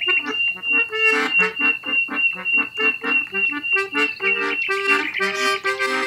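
Instrumental background music: a tune of quick, evenly spaced short notes over a held high tone.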